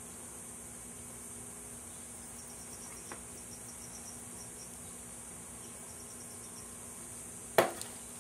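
Quiet workshop room tone: a steady high-pitched hiss over a low hum, with a faint tick about three seconds in and one sharp knock a little after seven seconds in.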